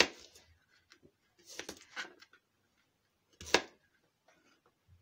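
Kitchen knife cutting an onion into chunks on a plastic cutting board: a few separate cuts and knocks of the blade against the board, the sharpest about three and a half seconds in.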